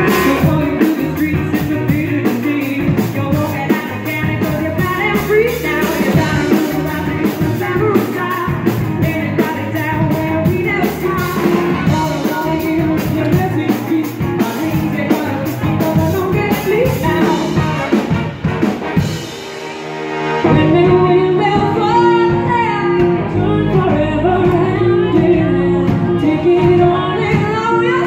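A live band playing upbeat rock with a female lead singer, electric guitar, bass, drums and horns (trumpet, trombone, saxophone). A little before twenty seconds in the music briefly drops back, then comes in again with less cymbal and the voice more to the fore.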